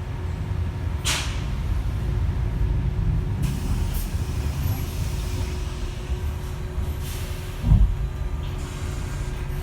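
Switch Metrodecker EV electric double-decker bus with ZF AxTrax AVE electric drive, heard from on board: a steady low rumble with a faint steady hum. A short hiss comes about a second in, and a brief thump comes near the end.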